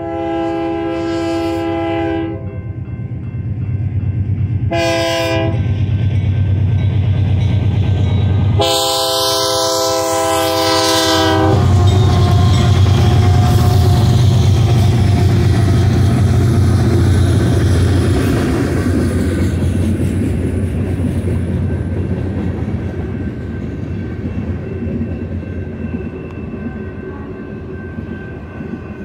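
BNSF freight train's lead locomotive, a GE Dash 9-44CW, sounding its horn for a grade crossing: a long blast, a short blast, then a final long blast about nine seconds in. A string of diesel locomotives then rumbles past, loudest just after the horn, giving way to the steady rumble and clatter of freight cars rolling by.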